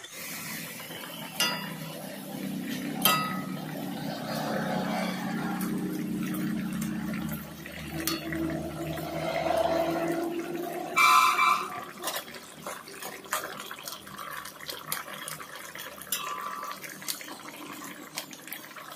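Spiced mustard gravy bubbling and simmering in a metal kadai as the fish curry comes to the boil. A metal spatula clinks against the pan a few times, loudest about eleven seconds in.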